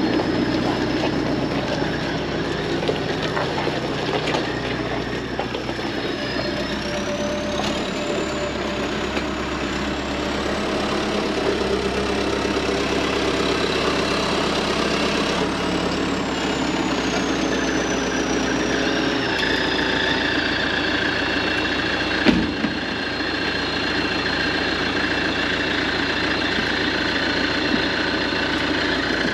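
A motor running steadily, with a thin high whine that climbs about six seconds in, holds, and then sinks back down over several seconds. A single sharp knock comes a little after two-thirds of the way through.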